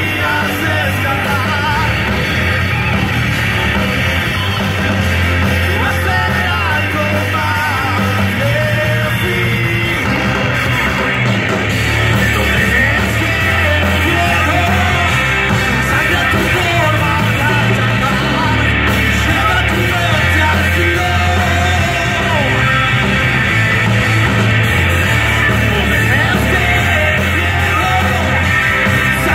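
Rock band playing live on stage, loud: electric guitars, bass and a drum kit.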